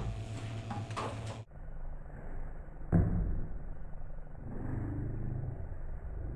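Ping-pong ball clicks twice in the first second. Then the sound suddenly turns dull and low: a slowed-down slow-motion soundtrack of rumble and hum, with one deep thud about three seconds in.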